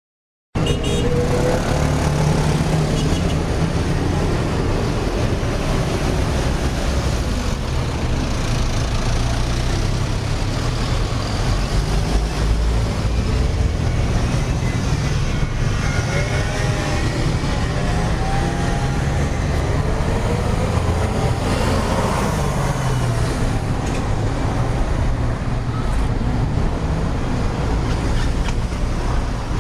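Heavy road traffic: a steady rumble of engines and tyres, with car horns sounding at times, mostly in the middle.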